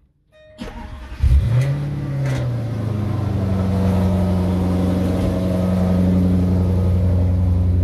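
Jaguar XF engine starting about a second in, its revs flaring briefly before it settles into a steady idle.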